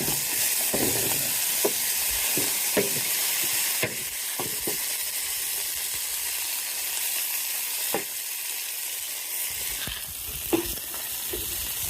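Food sizzling and frying in a large paella pan over a propane burner, a steady hiss with occasional short clicks.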